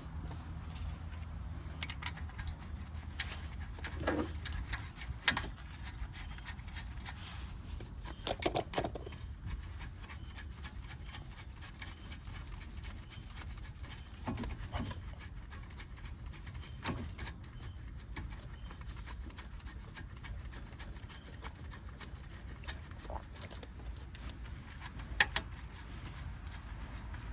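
Scattered metal clinks and knocks of a brake caliper and hand tools being handled as the caliper is refitted over new front pads, over a steady low hum. The sharpest knocks come about 2, 5, 8 and 25 seconds in.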